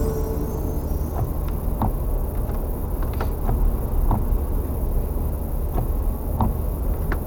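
Steady low rumble of a car driving, heard from inside the cabin, with scattered light ticks.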